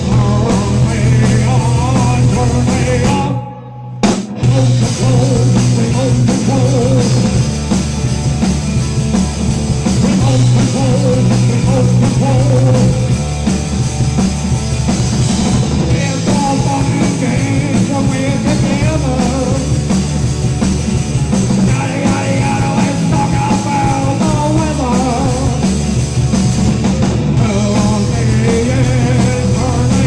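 Live punk rock band playing loud: pounding drums, amplified electric guitar and a male singer. About three and a half seconds in the band stops for a moment, and one sharp hit comes before they all crash back in.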